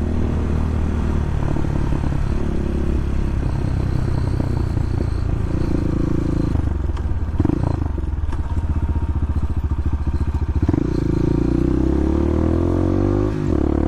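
A Bashan 250 dirt bike's engine running. About eight seconds in the engine settles into an even, pulsing beat for a couple of seconds, then picks up to a steadier, higher note.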